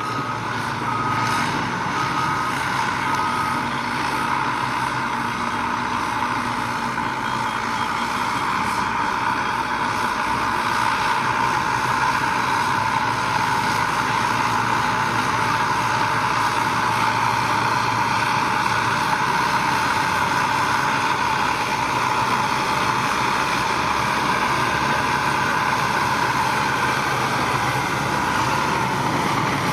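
Heavy construction machinery running steadily at a road-building site, a continuous engine drone that gets slightly louder about ten seconds in.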